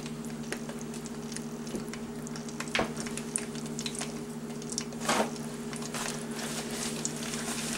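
Hot oil popping and crackling in a skillet around ears of corn on the cob as they fry: scattered small pops, with two louder ones about three and five seconds in, over a steady low hum.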